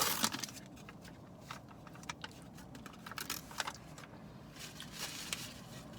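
Quiet, scattered small clicks and crinkles of a takeout meal being handled and eaten: paper or plastic packaging and food handled by hand, over faint car-interior noise.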